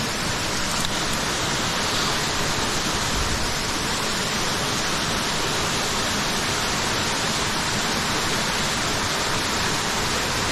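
Steady rush of water in a mountain stream, an even hiss with no breaks.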